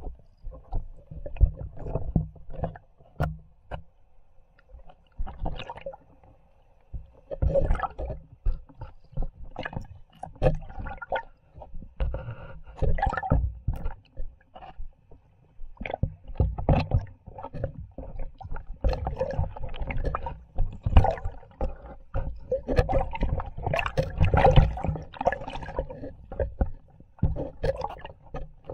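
Water sloshing and splashing right at the microphone, with irregular knocks and gurgles, in uneven bursts. It is quieter for a few seconds early on.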